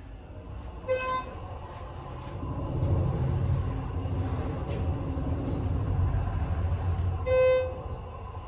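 Elevator car travelling down, with a steady low rumble that swells a couple of seconds in. Two electronic beeps sound over it, a short one about a second in and a longer, louder one near the end: the floor-passing tones as the car goes by each landing.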